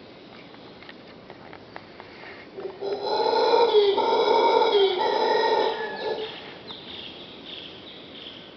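Mantled howler monkey howling: one loud call lasting about three seconds, broken into a few pulses, followed by fainter calls.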